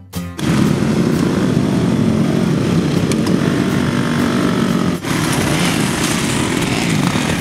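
Motocross bike engine running, with a brief break about five seconds in.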